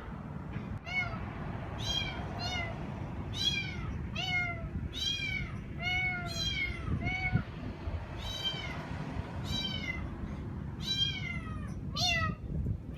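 A kitten meowing over and over, high-pitched, about once a second.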